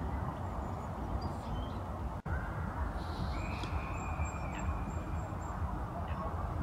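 Outdoor ambience: a steady low rumble with faint bird calls, including one drawn-out high whistled note about three seconds in and a few short chirps. The sound drops out for an instant about two seconds in.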